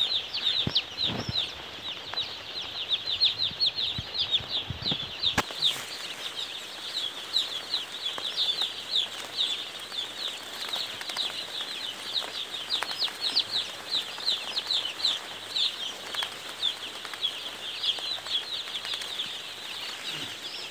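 A dense chorus of hundreds of baby chicks peeping, many short high chirps overlapping without a pause. A few soft low bumps in the first five seconds.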